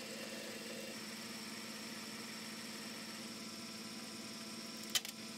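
Metal lathe running steadily while a parting tool cuts off a spinning bronze bush, a steady hum with a thin high whine coming in about a second in. One sharp click near the end.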